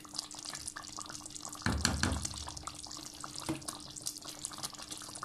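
Thickened kadhi (yogurt and gram-flour curry) bubbling at a simmer in a steel pot, a dense crackle of small pops, with the curry almost cooked. A louder dull thump about two seconds in and a smaller one a little later.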